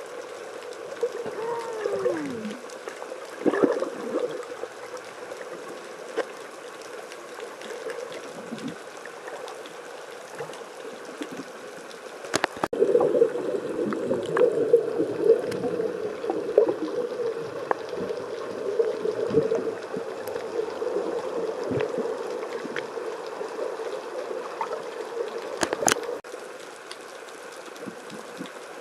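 Underwater gurgling and bubbling of seawater as picked up by a submerged camera, a muffled churning that gets busier and louder about halfway through, with a few sharp clicks and a short falling tone near the start.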